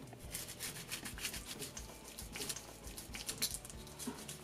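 A knife sawing through the crispy skin and into the breast meat of a roast chicken, giving a run of faint crackles and crunches.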